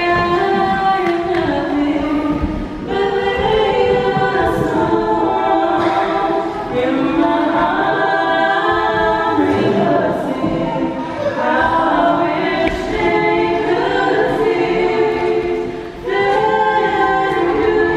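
A small group of men and women singing a cappella together, in slow phrases of long held notes, with short breaks between phrases, one near the end.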